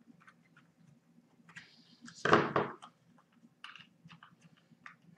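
A screwdriver is set down on the hard tabletop about two seconds in, a short clattering knock. Light metallic clicks of the revolver's small parts being handled come before and after it.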